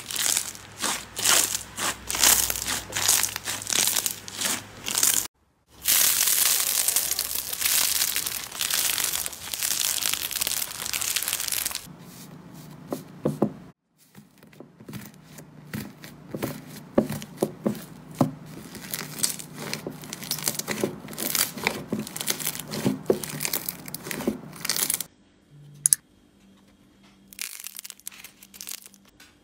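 Slime and modelling clay being pressed and squeezed by fingers, in several separate takes that start and stop abruptly: dense crackling and popping, with softer squishing near the end.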